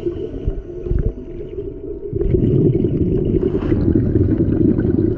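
Underwater at the camera: a scuba diver's exhaled air bubbling out of the regulator, a low bubbling rumble that swells about two seconds in and stays loud.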